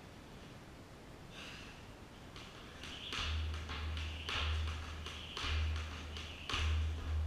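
Jump rope skipping on a rubber gym floor: repeated quick slaps of the rope, with an athlete's hard breathing mid-workout.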